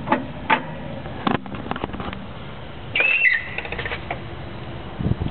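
A 2000 Honda Civic's front suspension being lowered off a jack: a few sharp clicks and knocks, then about three seconds in a short high squeak that drops in pitch, followed by more clicks. This fits the creak from the upper strut, spring and camber-kit area, which the owner cannot yet pin on the springs or on a camber-kit bushing.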